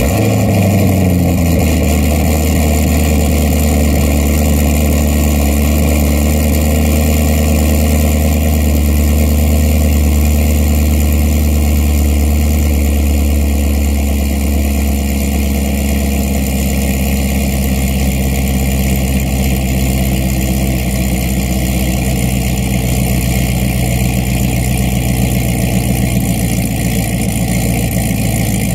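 C6 Corvette Grand Sport's 6.2-litre LS3 V8, fitted with long-tube headers and not yet tuned, fires on a cold start and settles into a loud, steady high idle from the exhaust.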